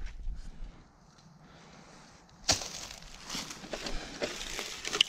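Irregular crackling and rustling of dry leaves and brush, starting suddenly about halfway in and going on as scattered crunches.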